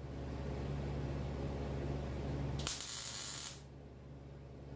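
MIG welder laying a plug weld in sheet steel: a steady crackling buzz over a low hum for about three seconds, then a brief hiss before it stops.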